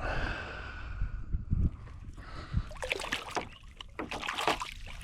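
Water splashing and sloshing as a small just-caught redfish is handled at the surface, with a quick run of splashes about three seconds in.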